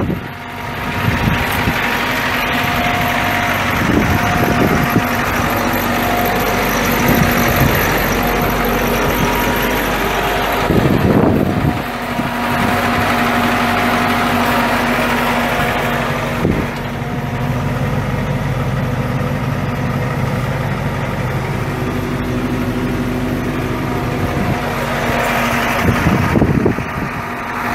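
Ford F350's 7.3-litre V8 diesel engine idling steadily, with a few brief gusts of wind noise on the microphone, one about eleven seconds in and another near the end.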